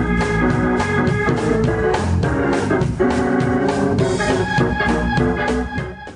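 Organ music with a steady beat, fading out near the end.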